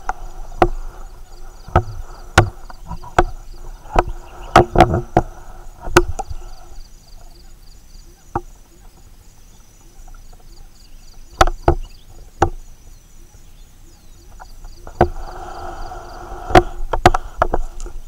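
Distant chorus of animal calls, 'wo oo ak ak ak', carrying across a forested hill. It fades out about seven seconds in and comes back near the end. Loud sharp clicks come on and off throughout, over a faint steady insect trill.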